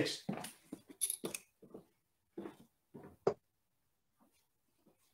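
Faint scraping and soft knocks from darts being handled, then a single sharp thud a little over three seconds in: a steel-tip dart striking a Winmau Blade bristle dartboard.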